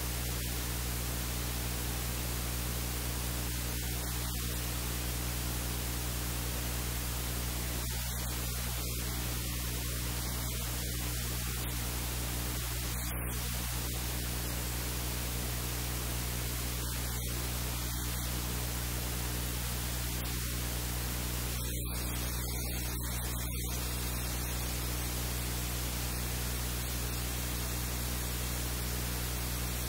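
Steady static hiss with a low electrical hum underneath, unchanging throughout; no other sound stands out.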